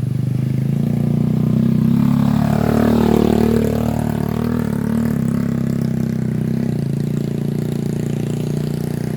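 Motorcycle engine running steadily at close range, with pitches rising and falling in the middle as another engine passes.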